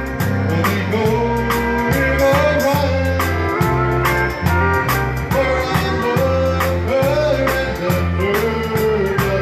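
Live band playing a country number: bass and drums keep a steady beat under a wavering melody line.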